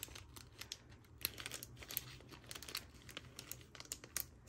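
Packaging of a box of gel nail tips being handled and opened: crinkling and rustling with many small, irregular clicks.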